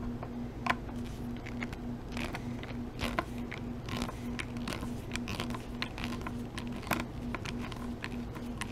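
Phillips screwdriver backing small screws out of a Fluke 87 III multimeter's plastic case: scattered light clicks and scrapes of the tip in the screw heads. A steady low hum runs underneath.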